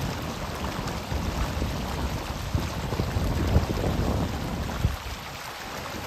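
Shallow river water running over a stony bed, with wind buffeting the microphone in a gusting low rumble that eases about five seconds in.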